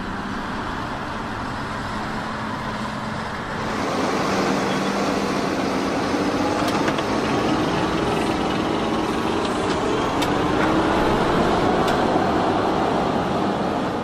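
Fendt 939 tractor's six-cylinder diesel working under heavy load, pulling a deep plough through heavy soil. It grows louder and rougher about four seconds in, where the earth churning past the plough body joins the engine, whose note rises slowly, with a few sharp clicks.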